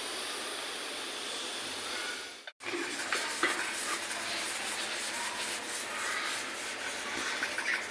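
Hot oil sizzling in a steel kadai: a steady hiss with faint crackles. The sound drops out completely for a moment about two and a half seconds in.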